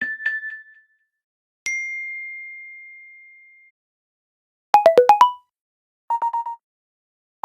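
Four short phone alert tones play one after another with silent gaps between them: a brief chime, a single high ding that fades away over about two seconds, a quick run of five notes, and a short fast trill.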